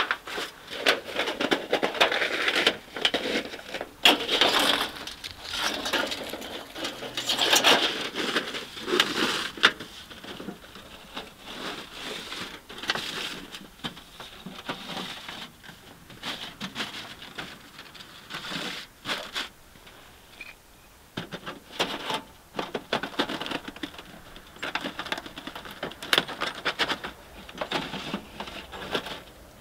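Long metal stovepipe for a tent wood stove being handled and its sections slid and pulled out: irregular scrapes, metallic clinks and rustling.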